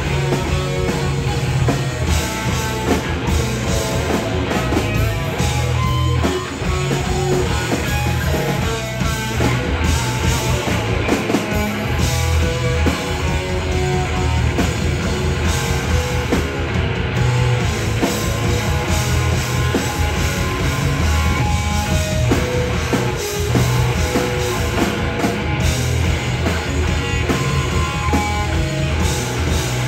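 Rock band playing live: guitar, bass and drum kit in a loud, continuous song.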